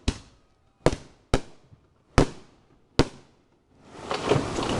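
Five sharp firework bangs at uneven intervals, each with a short trailing echo, followed near the end by a rising rush of noise.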